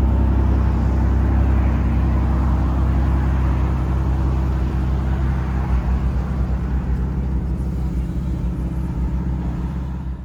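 Aston Martin DBS Volante's twin-turbo V12 engine running steadily at one engine speed, growing a little quieter over the second half.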